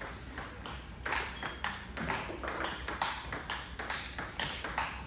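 Table tennis balls clicking sharply against tables and paddles in a quick, uneven run of about four or five clicks a second, starting about a second in.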